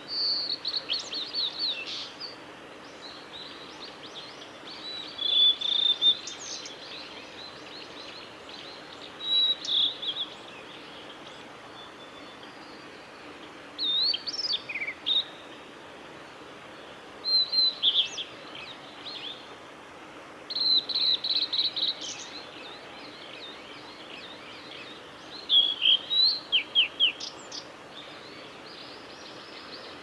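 Male blue-and-white flycatcher singing: seven short phrases of clear whistled notes and quick slurred runs, each a second or two long, with pauses of a few seconds between them.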